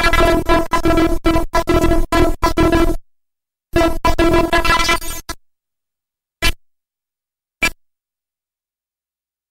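Circuit-bent toy lowrider truck's sound circuit putting out a steady-pitched electronic tone that stutters in and out for about three seconds. After a short gap comes a second burst of about a second and a half, then two short blips.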